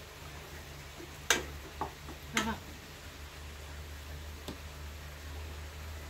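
Tableware clicking and knocking four times in a few seconds, the sounds of someone starting to eat, over a steady low hum.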